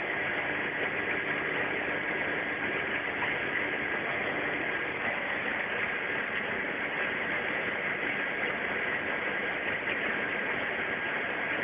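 Ikarus C42 microlight in cruising flight, heard from inside the cockpit: the steady drone of its engine and propeller mixed with wind rush, holding an even level with no change in power.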